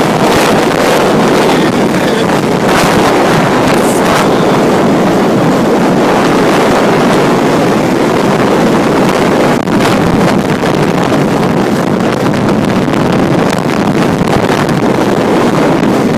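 Wind buffeting the microphone: a loud, steady rushing with a few stronger gusts.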